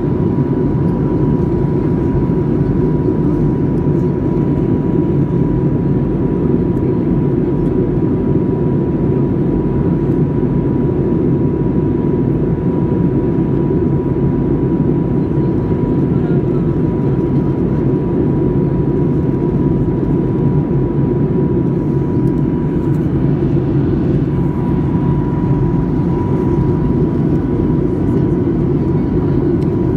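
Boeing 737-800 cabin noise in descent: a steady low rumble of airflow and engines, with a thin steady whine held throughout.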